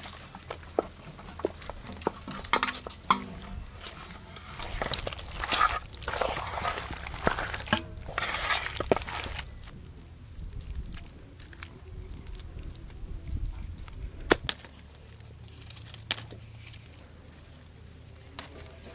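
Hands mixing cut raw chicken into a wet masala of egg and curd: squelching and clicking, busiest from about two to nine seconds in, then lighter with a few sharper clicks. A high chirp repeats about twice a second in the background.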